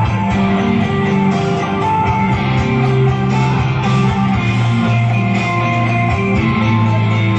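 Guitar-led music playing steadily, with long held bass notes.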